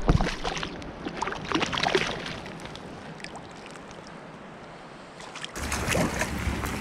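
Shallow river current running over rocks close to the microphone, with small splashes and ticks of water in the first two seconds. About five and a half seconds in, it cuts abruptly to a louder rush of water with a low rumble.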